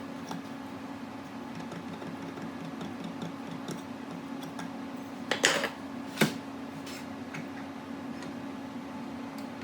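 A woodshop machine running with a steady hum, with a few sharp knocks about five and a half and six seconds in.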